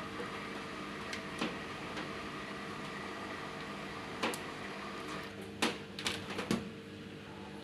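Washing machines under test running with a steady electrical hum of several low tones, broken by a few sharp clicks. The hiss drops off about five seconds in.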